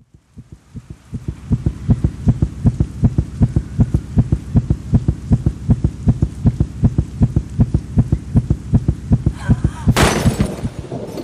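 Film-soundtrack pulse of low thumps, about four a second, that fades in and then holds steady like a racing heartbeat, building tension. Near the end a loud crash with a ringing tail breaks across it.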